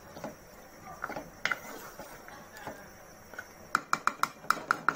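A spoon stirring and turning chicken roast in an aluminium pot, with a few soft knocks on the metal, then a quick run of about eight sharp, ringing taps on the pot near the end.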